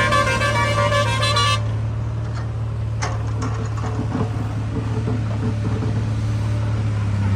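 A vehicle horn sounds once for about a second and a half over a diesel engine running steadily.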